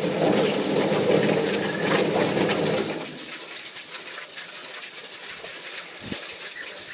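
Stainless steel drum chicken plucking machine running with a steady motor hum, which stops about three seconds in. After that, water from a hose splashes into the drum.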